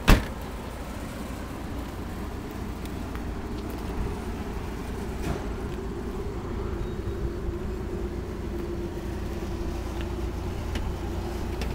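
Trunk lid of a Ford Focus sedan slammed shut: one sharp thump. After it, a steady low rumble with a faint hum from about halfway on.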